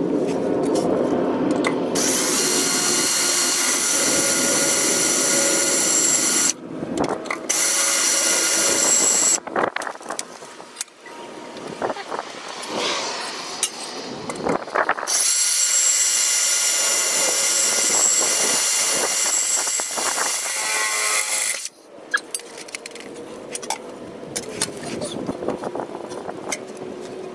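Cordless drill boring mounting holes in a car's underbody through the guide holes of a catalytic converter shield, run in three spells of a few seconds each with pauses between.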